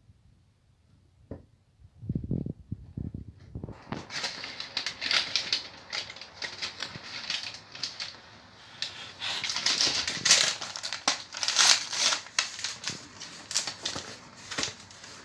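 A few soft knocks as a small cardboard parcel is handled. About four seconds in, dense, irregular crinkling and tearing begins as its clear plastic film and paper wrapping are pulled off.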